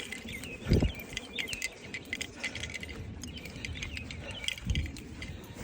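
Small birds chirping over and over, with two dull low thumps, one about a second in and one near the end.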